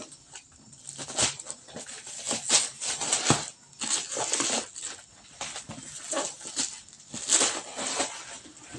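Clear plastic wrap crinkling and cardboard scraping as a parcel box is unwrapped by hand, in irregular bursts with a few sharper rips.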